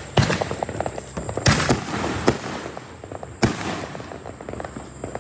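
Fireworks going off: four loud bangs spread over about three and a half seconds, each trailing off, over a continuous crackle of smaller firecrackers.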